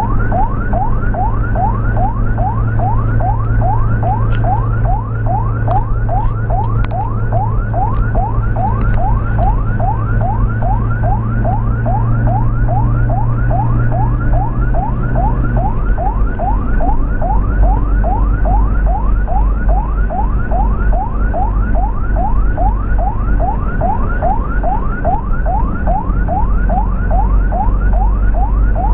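Ambulance electronic siren on a fast yelp: short rising whoops repeating about three times a second. A vehicle engine drones underneath, and a steady low note in it drops away about halfway through.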